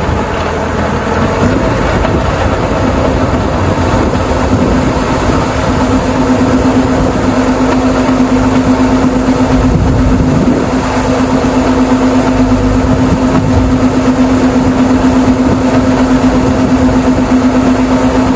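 Rice combine harvester running: a loud, continuous machine drone with a steady hum that comes in about three seconds in, growing louder over the first few seconds and then holding steady.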